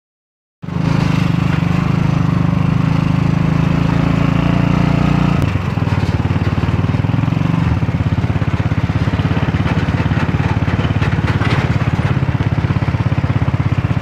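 A small engine running steadily with a rapid, even putter; its note changes about five seconds in.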